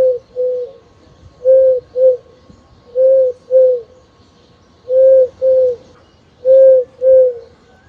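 A dove cooing in a steady rhythm: five pairs of short, low coos, each pair following the last after about a second and a half.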